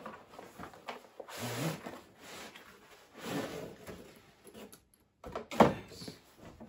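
A tripod's cardboard box and packaging being opened and handled: scraping and rustling in several swells, with one sharp knock about five and a half seconds in, the loudest sound.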